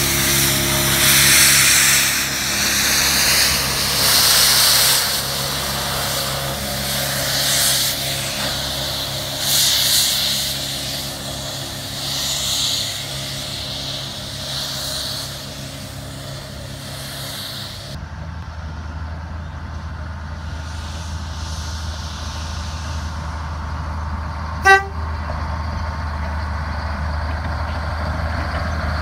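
Steam locomotive moving off, with slow, uneven surges of steam hiss every two or three seconds over a steady low hum. After a cut, a diesel locomotive runs with a steady low drone and gives one short horn toot near the end.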